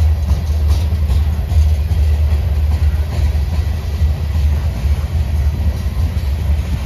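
Covered hopper cars of a freight sand train rolling past: a steady low rumble of steel wheels on rail.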